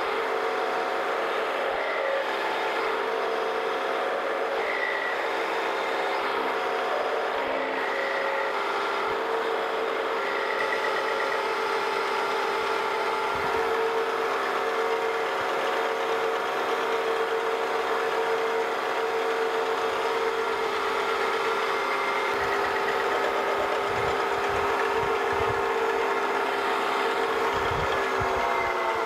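Wells-Index vertical milling machine running with an end mill contour-cutting a radius corner, the audio sped up along with the time-lapse picture, giving a steady mechanical whine with several held tones. A few low knocks come near the end, and the sound cuts off abruptly.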